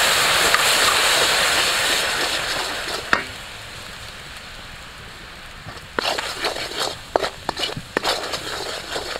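Fish sauce sizzling loudly in a hot wok of caramelised sugar, fading over the first few seconds. Later a wooden spatula scrapes and taps the wok, with scattered crackles as the sauce bubbles.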